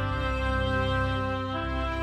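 Background music: a slow, tender improvised piece played on a Yamaha Motif XS8 synthesizer, with held chords that change every second or two.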